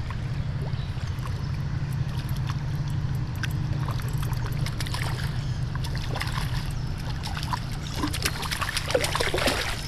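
River water trickling and splashing over a steady low rush, with sharper, louder splashes near the end as a hooked brown trout thrashes at the surface.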